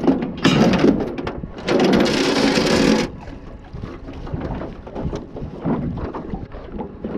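Anchor dropped over the bow of an aluminium tinny: a loud splash about half a second in, then a longer rush of noise for over a second as the anchor line pays out over the bow, followed by quieter knocks and water sounds.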